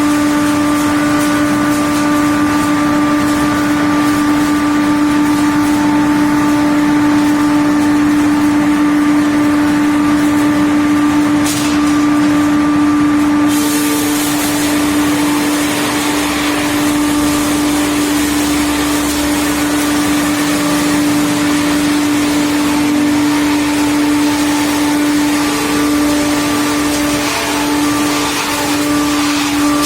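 SB-480-4v four-shaft multi-blade circular saw running with a loud, steady whine. A harsher high hiss joins about fourteen seconds in.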